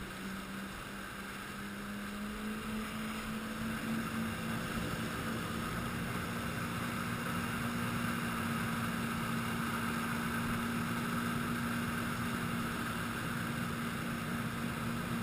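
Jet ski engine running under way while towing an inflatable ring. Its pitch rises slightly about two seconds in, then holds steady, over the rush of the wake water.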